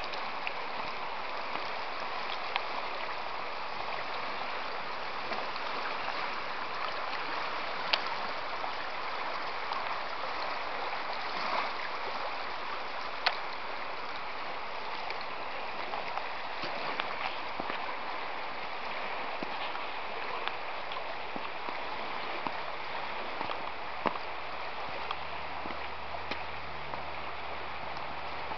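Fast-flowing shallow river rushing over its stony bed, a steady even rush, with a few sharp clicks now and then.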